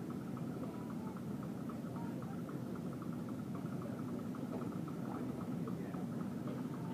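Steady low rumble of a large indoor arena hall, like running ventilation or heating fans, with a quick, even faint ticking throughout.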